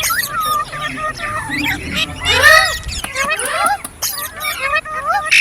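Green parrot chirping, a rapid run of calls that swoop up and down in pitch, loudest about two and a half seconds in.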